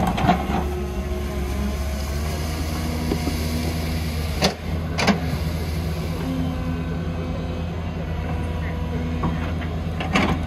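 Heavy diesel engine of construction machinery running steadily, with two sharp knocks about halfway through and more near the end.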